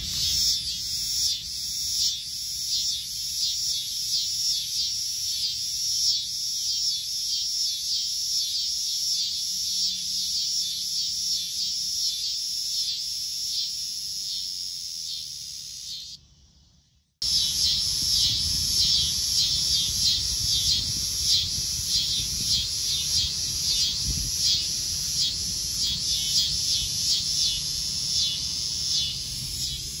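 Annual (dogday) cicadas singing: a loud, high buzz that pulses several times a second. It cuts out for about a second just past the middle, then resumes.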